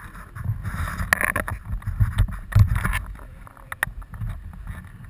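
Handling noise on a camera's microphone: fabric rubbing and brushing over it, with uneven rumbling swells and a scattered run of small clicks and knocks.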